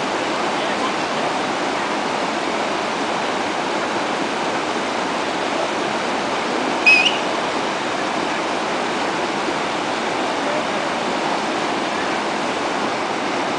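Fast mountain river rushing over rocks and boulders, a steady roar of white water. About seven seconds in, a brief high-pitched sound rises over it.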